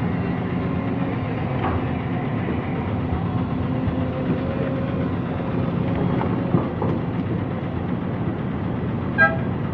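Heavy diesel engine running steadily as an excavator digs soil and loads a dump truck, with a few short knocks and a loud ringing metallic clank near the end.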